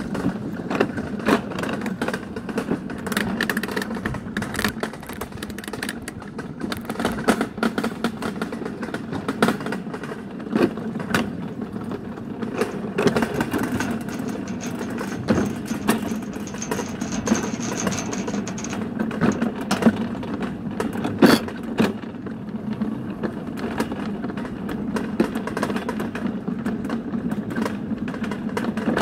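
Summer toboggan sled running fast down a metal trough: a steady rumble with frequent rattles and sharp knocks from the sled jolting in the channel.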